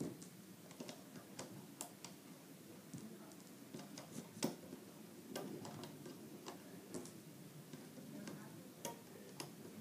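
Faint, irregular clicks and taps of rubber bands being stretched onto the plastic pegs of a bracelet loom by hand.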